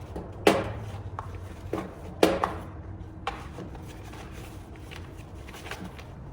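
A jump starter and its accessories being packed into their carry bag: two sharp knocks, one about half a second in and one about two seconds in, a few lighter knocks, then soft rustling and rubbing.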